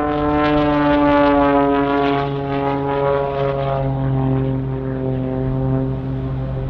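Zivko Edge 540 aerobatic plane's engine and propeller running at high power, a loud steady buzz whose pitch eases slowly lower.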